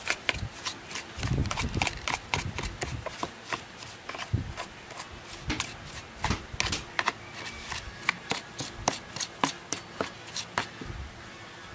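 Brush scrubbing the oily yellow plastic housing of a Ryobi engine: quick scratchy strokes with many short, sharp ticks as the bristles catch its edges.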